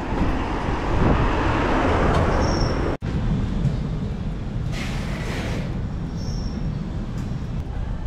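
Steady outdoor vehicle and traffic noise with a momentary dropout about three seconds in and a short hiss about five seconds in.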